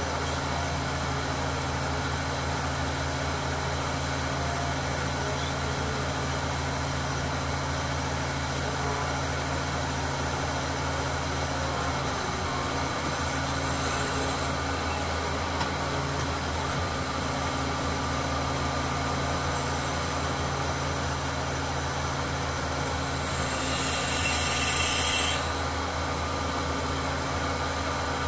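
Mobile crane's diesel engine idling steadily. Near the end a short, high-pitched sound rises over it for about a second and a half, the loudest moment.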